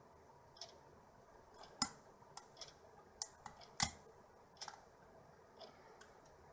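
Small, sharp metallic clicks and taps of a lock pick and tension wrench working in the keyway of a pin-tumbler rim cylinder, probing the pins. The clicks are scattered and irregular, with two louder ones about two and four seconds in.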